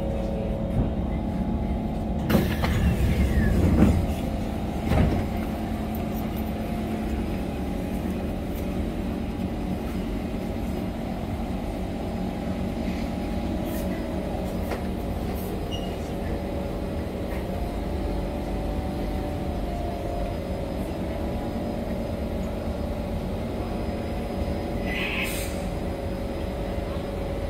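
Steady hum of a C151 metro train standing at the platform. Between about two and five seconds in comes a louder clatter with a falling whine and a thump, the car doors opening, and a short hiss sounds near the end.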